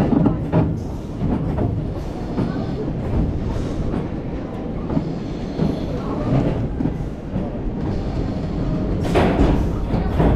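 GCI wooden roller coaster train rolling slowly along the track: a steady rumble of wheels with scattered clunks, and a louder run of knocks about nine seconds in.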